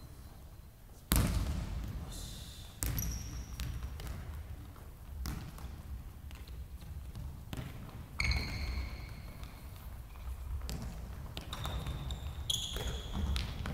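Futsal ball being kicked and passed on a hardwood sports-hall floor: sharp thuds that echo through the large hall, the loudest about a second in. Short high squeaks of sneakers on the wooden court come between the kicks.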